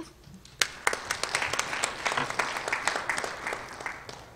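Audience applauding: a few first claps about half a second in, building at once into steady clapping that dies away near the end.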